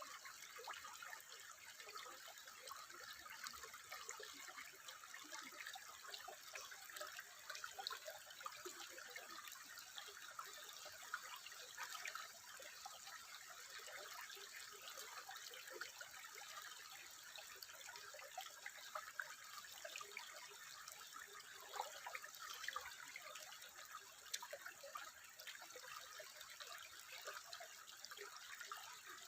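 Faint, steady trickling water with many small irregular drips and splashes.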